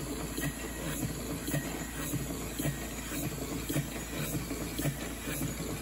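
Model English beam engine running on its first run: a regular puff about twice a second from the cylinder, with light clicking from the valve gear and linkages, over a steady hiss.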